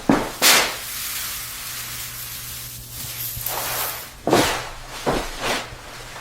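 A steady hiss over a faint low hum, lasting about three and a half seconds, set between several short, loud swishes.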